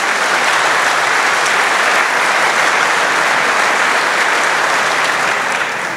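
Large audience applauding in a big hall: steady clapping that starts right after the speaker's sentence and begins to die away near the end.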